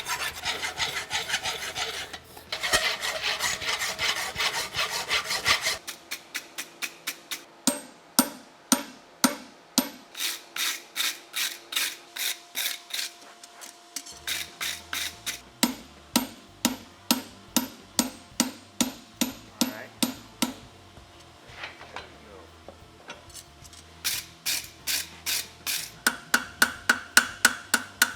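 Hand file or rasp scraping over a forged steel horseshoe, cleaning up its edges: a fast run of strokes for the first several seconds, then slower, evenly spaced strokes about two to three a second, with a brief pause about three-quarters of the way through.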